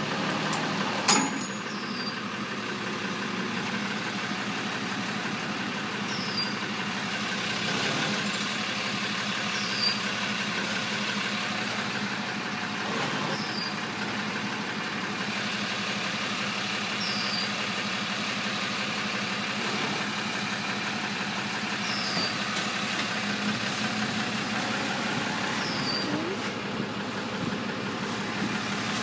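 A truck engine idling steadily, with a sharp click about a second in. Short high chirps recur every couple of seconds.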